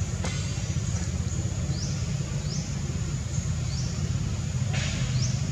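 Steady low rumble with short, high rising chirps repeated about once a second, and a brief click near the start and another near the end.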